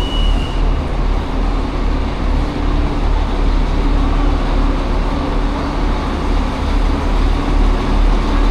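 Diesel train engines idling with a steady low rumble and hum.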